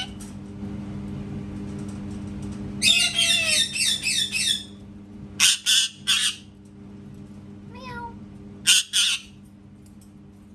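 Pet parrot calling: a quick run of wavering, pitched notes about three seconds in, then short harsh squawks, three together and later two more, with a faint falling whistle between them.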